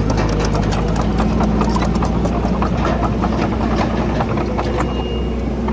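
Komatsu D31PX bulldozer's diesel engine running steadily, with a constant clatter and rattle of its steel tracks and of rock and soil under them.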